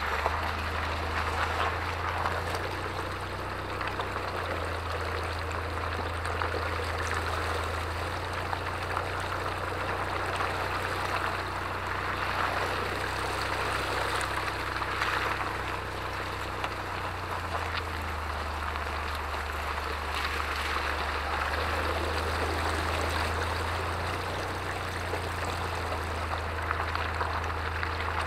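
Off-road SUV tyre rolling through puddles and mud, water splashing and sloshing continuously, over a steady low drone.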